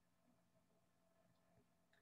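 Near silence: a pause in speech, with only a very faint steady background hum.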